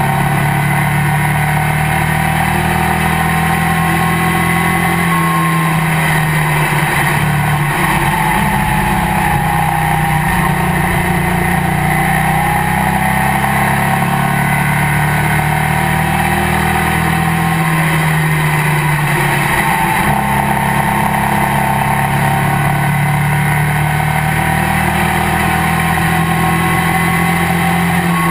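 Race car engine heard from inside the cockpit, running hard and loud, its pitch dipping and climbing back up a few times as the throttle comes off and goes back on.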